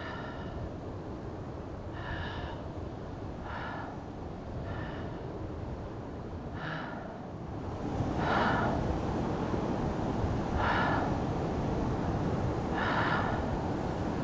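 Short, loud breaths close to the microphone, about eight of them one every couple of seconds, over the steady wash of small lake waves lapping the sand. The waves grow louder about eight seconds in.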